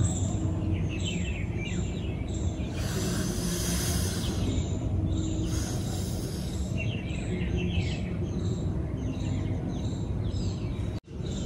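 Small birds chirping in quick clusters of short falling notes over a steady low hum of outdoor background noise, with two spells of soft rushing noise in the middle.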